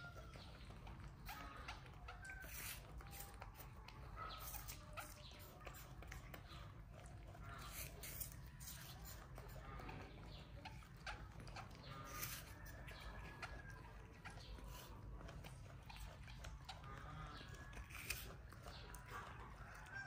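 Faint clicks and smacks of a baby monkey chewing apple, with scattered brief high chirps over a steady low background hum.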